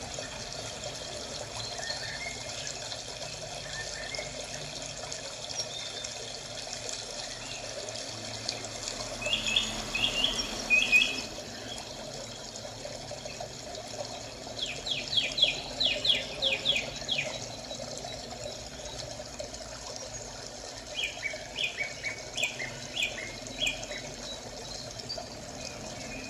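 Several runs of quick, high bird chirps over a steady trickle of running water.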